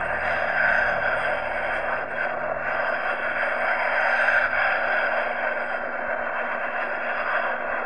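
Air India jet airliner's engines giving a steady rushing noise as it rolls along the runway.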